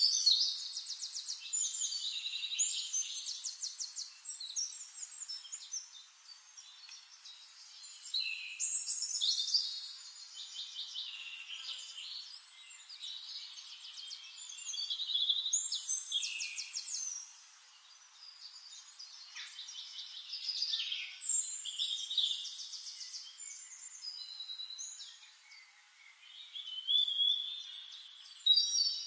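Songbirds singing: high phrases with rapid trills, a new phrase every few seconds with short quieter gaps between.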